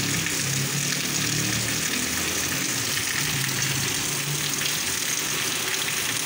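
Heavy rain hissing steadily on a wet paved street, with water pouring down and splashing onto the pavement. A faint low hum fades in and out underneath.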